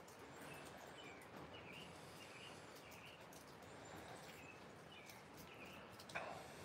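Quiet outdoor ambience: a small bird chirping over and over in short notes over a faint steady hiss, with one short knock about six seconds in.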